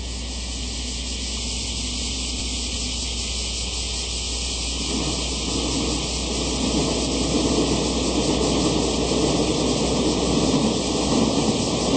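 N-gauge model train running across a model girder viaduct. Its rumble comes in about five seconds in and grows louder as it nears, over a steady hiss and a low hum.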